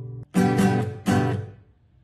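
Music: guitar chords. A ringing chord cuts off suddenly, then two strummed chords ring out and fade away.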